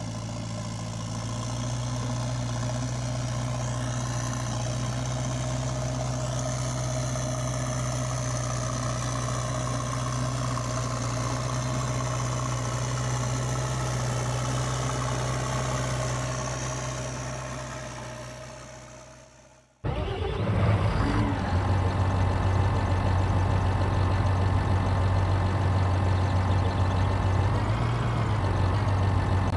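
Steady idling engine sound, like a diesel tractor or excavator, that fades away about two-thirds of the way through; a second, louder idling engine sound cuts in suddenly right after.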